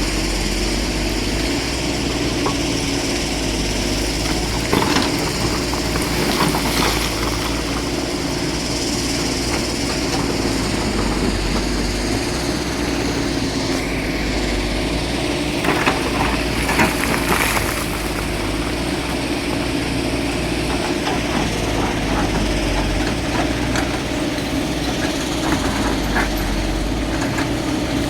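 Excavator engine running steadily under work, with a few short knocks or clanks of the machine about five, six and a half, and sixteen to seventeen seconds in.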